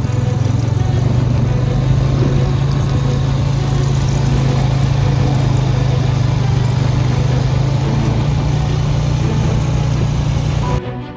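A motor vehicle engine running steadily with a loud low hum. It cuts off abruptly shortly before the end.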